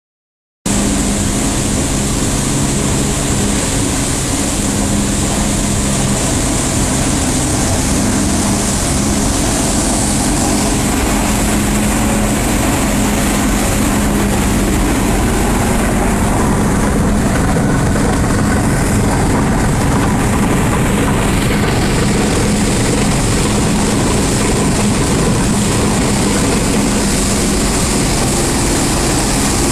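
PE/PP plastic film crushing and washing line running: a loud, steady industrial machine din with a low hum, starting abruptly about half a second in.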